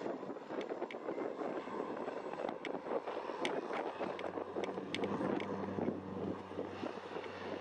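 Beechcraft Super King Air 200's twin turboprop engines at take-off power on the take-off run, a steady low propeller drone that grows plainer about halfway through as the nose lifts. Wind buffets the microphone.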